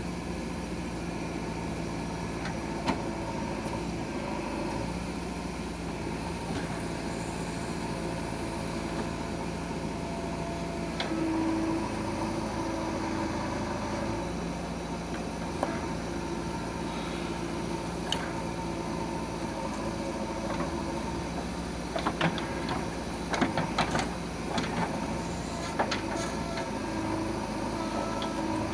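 Diesel engine of a JCB 3DX backhoe loader running steadily under working load, its pitch and load shifting a few times. A cluster of sharp metallic knocks comes about three quarters of the way through.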